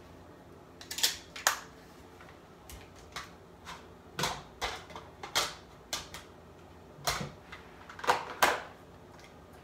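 Small hard objects clicking and knocking as they are handled, picked up and set down while someone rummages through them, about fifteen irregular taps. The loudest come as pairs about a second in and again near the end.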